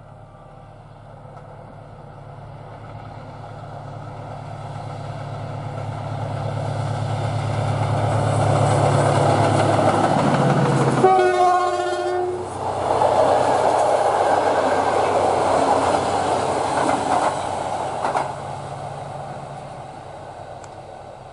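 Diesel locomotive approaching, its low engine drone building steadily. It gives one horn blast about a second long as it passes, about eleven seconds in. Then double-deck passenger coaches rumble and clatter by, fading away.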